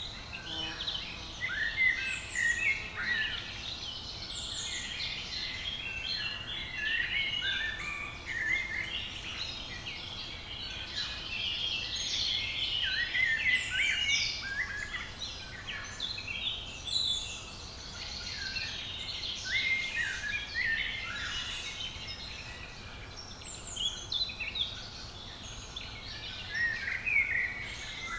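Woodland birdsong: several songbirds singing at once, a dense overlapping stream of quick chirps and trills over a faint steady hiss.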